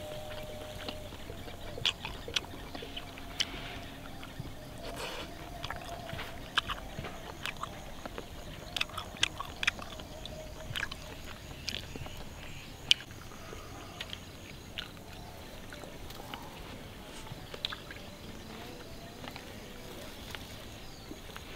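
Close-up eating sounds of chewing a mouthful of iron-plate grilled chicken wing, with many scattered short, wet clicks and smacks of lips and tongue. The clicks thin out near the end.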